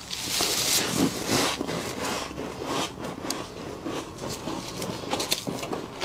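Gloved hands scraping and crunching thick frost in a chest freezer: an irregular run of soft scrapes and crunches with a few sharper crackles.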